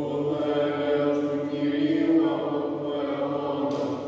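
Greek Orthodox Byzantine chant: voices sing a slow, melismatic psalm melody over a steady held drone (the ison). The phrase tails off near the end.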